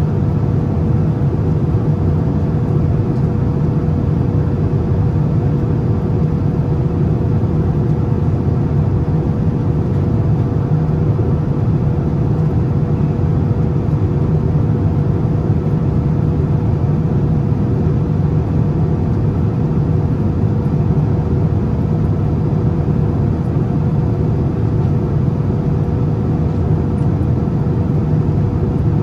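Steady cabin noise of a Boeing 787-9 airliner in flight: a low, even rush of airflow and engine noise with a faint steady hum over it.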